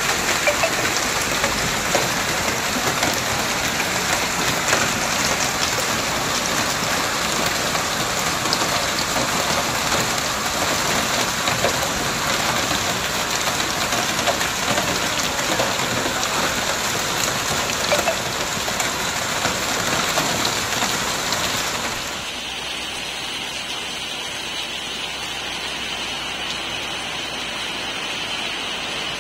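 Hail and heavy rain pelting down: a loud, dense hiss of countless small hits. About 22 seconds in it changes abruptly to quieter, softer steady rain.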